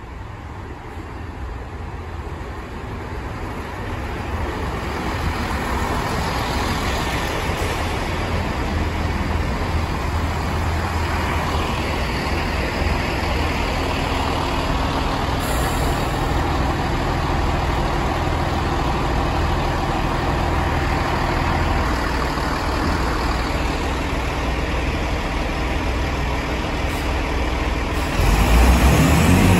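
Chiltern Railways Class 165 diesel multiple unit drawing into the platform and coming to a stand, its underfloor diesel engines droning; the sound grows louder over the first several seconds as it arrives. Near the end the engines rev up sharply and louder.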